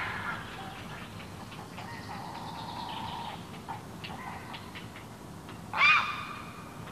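Wetland birdsong: faint chirps and short ticks from small birds, then one loud, harsh, caw-like call from a large bird about six seconds in.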